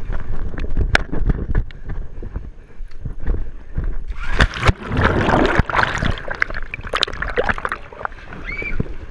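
Wind rumble and handling knocks on the microphone, then a splash into a swimming pool about four seconds in, followed by churning, gurgling water as the camera goes under.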